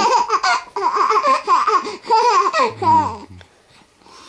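A baby laughing in quick, repeated high-pitched giggles, which stop about three and a half seconds in.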